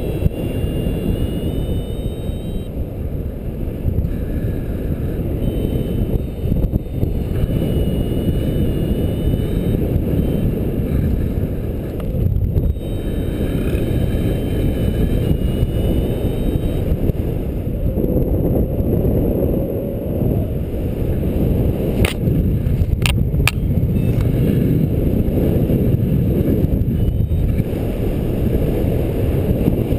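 Airflow buffeting the microphone of a paraglider pilot's camera in flight, a loud, steady low rumble. A few sharp clicks come about three-quarters of the way through.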